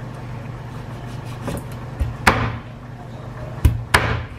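Chinese cleaver chopping raw chicken on a wooden cutting board: several sharp chops, the loudest a little over two seconds in and two close together near the end.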